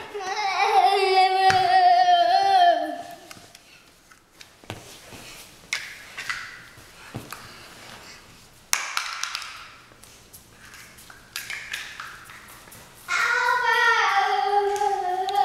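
A toddler making a long, steady high-pitched tone with a small yellow toy held to his mouth. The tone sounds for about three seconds and slides down as it ends, and starts again near the end. In between there are scattered light knocks and taps.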